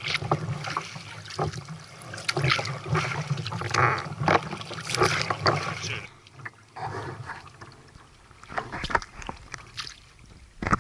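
Sea kayak paddling on calm water: paddle blades dipping in with small irregular splashes and drips, and water trickling along the hull. It goes quieter, with fewer strokes, for the last few seconds.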